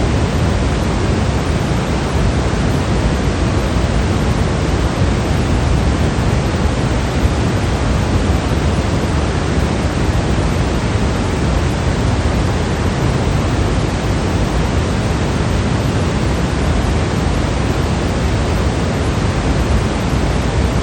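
Generated white noise: a steady, unchanging rush with no tones or events, heavier in the low end than the high.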